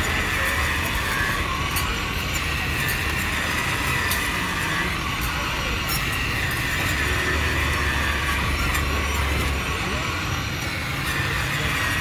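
Steady city street noise: traffic running, with faint voices in the background.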